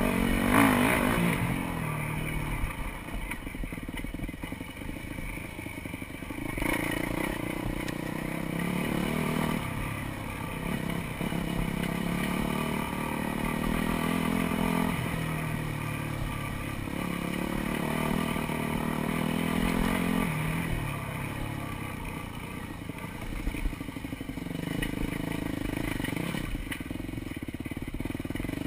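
Dirt bike engine revving as it is ridden along a trail, its pitch climbing and dropping back again every few seconds.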